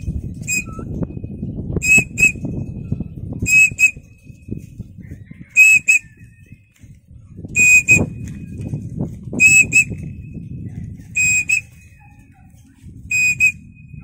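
A high, clear two-note whistle, the short notes coming in pairs about every two seconds, over a low rustling noise.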